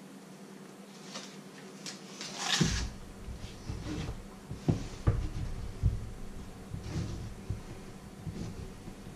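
Table knife spreading butter on slices of bread on a wooden cutting board: irregular scraping and dull knocks of knife and bread against the board. A short rustle of the foil butter wrapper comes about two and a half seconds in.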